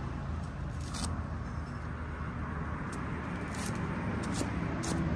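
Cleaver chopping vegetable stalks on a wooden chopping board: several sharp chops at uneven intervals, more of them in the second half, over a steady low rumble.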